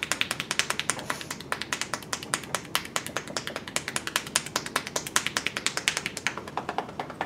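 Massage tapotement by pounding: hands striking the body in a rapid, even rhythm, about nine sharp pats a second.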